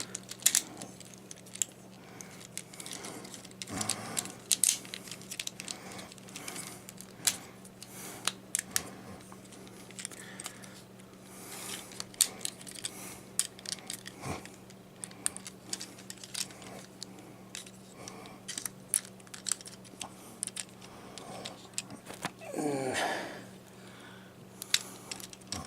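Hard plastic parts of a Transformers action figure clicking and ticking as they are rotated, folded and snapped into place. Many small sharp clicks, scattered and sometimes in quick runs, over a faint steady hum.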